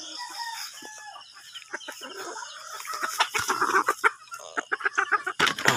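Chickens clucking and calling, with a fuller, longer call about three seconds in. Many sharp clicks and a loud knock near the end run through it.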